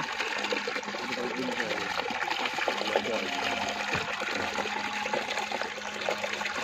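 Shallow water trickling and splashing through a fine mesh net trap in a mud channel, with many small crackling splashes throughout.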